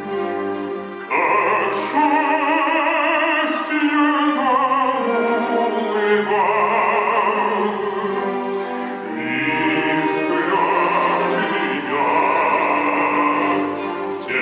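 Operatic singing with strong vibrato on long held notes, over orchestral accompaniment.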